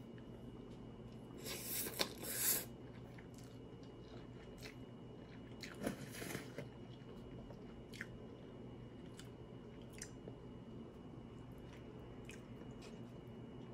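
Quiet eating of cup ramen noodles with chopsticks: chewing, with two short louder eating noises about 2 and 6 seconds in and a few faint clicks between.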